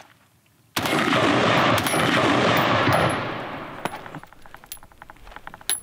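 M4 carbine firing a long burst of automatic fire in 5.56 mm, starting suddenly about a second in and lasting a little over two seconds. It then dies away, with scattered small clinks of spent brass afterwards.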